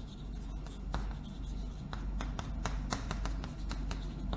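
Chalk writing on a blackboard: a quick, irregular run of short scratches and light taps as characters are written stroke by stroke.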